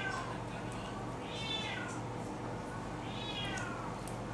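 Kitten meowing over and over: high, downward-falling cries, about two full meows with the tail of another at the start.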